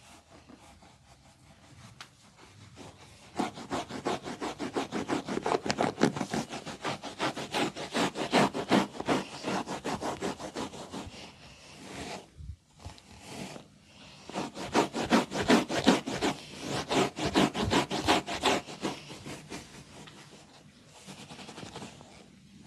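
Fast, rhythmic rubbing and scraping strokes of a head massage, hands working quickly over hair and scalp. It comes in two long runs of several strokes a second, with a brief pause about halfway through.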